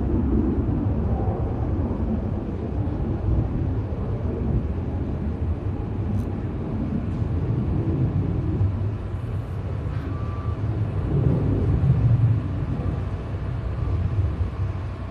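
Distant aircraft engines droning at an air show: a low rumble that swells slightly about eleven seconds in.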